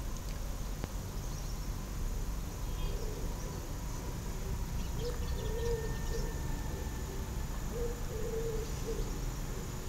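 A dove cooing in short phrases of low hooting notes, repeated every two to three seconds, over a low steady rumble.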